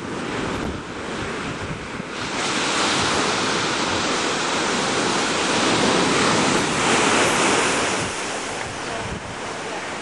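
Heavy surf breaking and washing up a sandy beach, a continuous rushing that swells about two seconds in and eases near the end, with wind buffeting the microphone.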